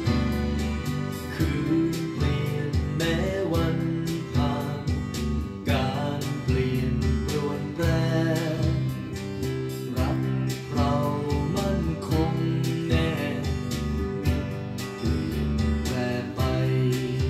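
Thai pop song playing: a band with guitar and a steady beat, with a voice singing the melody over it.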